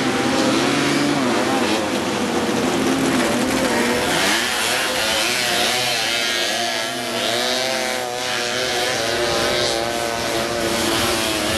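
Several small off-road buggy engines racing on a dirt track, revving up and down as they accelerate and slow through the course. Their pitch rises and falls over and over, with the mix changing about four seconds in.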